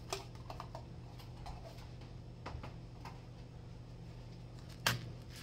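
Scattered light clicks and knocks of things being handled out of sight, with one sharper knock near the end, over a steady low hum.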